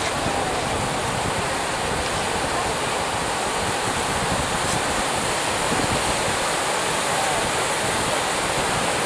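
Sea surf breaking and washing over rocks at the shoreline, a steady rush of foaming water.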